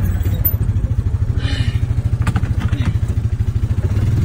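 An engine running steadily at idle with a rapid, even low throb. A few light clattering clicks come a little after two seconds in.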